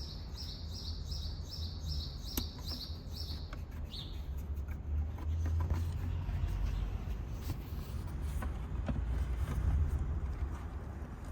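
A bird calling a quick run of about a dozen high chirps, about four a second, that stops about three and a half seconds in, with one last rising chirp just after. Beneath it a steady low rumble and a few faint clicks.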